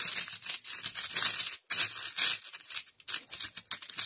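Small metal alloy charms clinking and rattling as fingers rummage through a plastic box full of them: a quick run of light clicks, with a brief pause under two seconds in.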